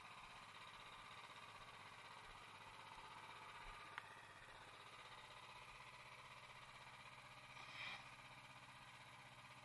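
Near silence: faint outdoor background, with one sharp click about four seconds in and a brief higher-pitched sound near the end.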